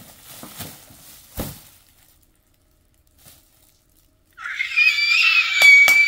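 A girl's high-pitched, excited squeal, starting about four seconds in and held for a couple of seconds, its pitch wavering. Before it come a few faint knocks of the plastic-wrapped box being handled.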